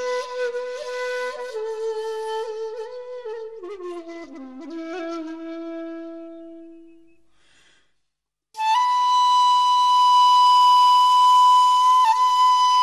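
Music on a flute-like wind instrument: a slow melody of single held notes fades out about halfway through. After a moment of silence, one long, loud high note is held, dipping slightly in pitch near the end.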